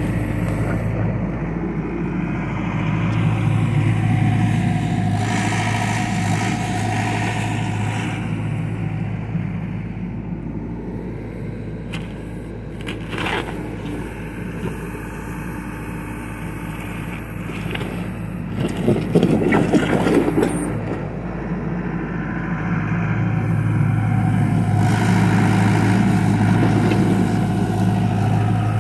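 John Deere 60G compact excavator's diesel engine running under hydraulic load, rising and strengthening as the boom and bucket work and easing off in between. The bucket scrapes through soil, with a short clatter about 13 seconds in and a louder scraping burst around 19 to 20 seconds in.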